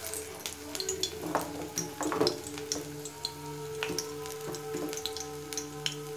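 Coriander-leaf batter frying in hot oil in a wok, crackling with scattered sharp pops, with a denser burst of crackling about two seconds in.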